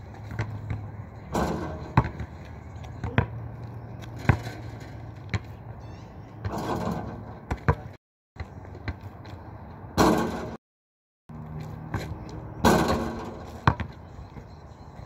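A basketball bouncing on an asphalt court in sharp single knocks, with louder crashes every few seconds as shots hit the hoop's backboard and rim. The sound cuts to silence twice, briefly.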